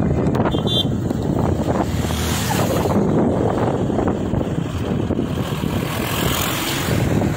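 Wind buffeting the microphone: a loud, steady, gusty rumble.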